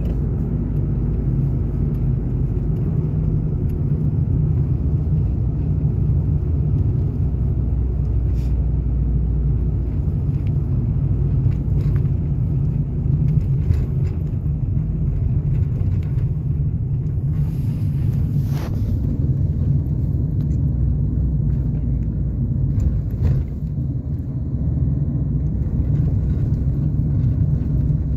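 Steady low rumble of road and engine noise heard inside a passenger van's cabin while it drives at highway speed, with a few faint clicks from the cabin.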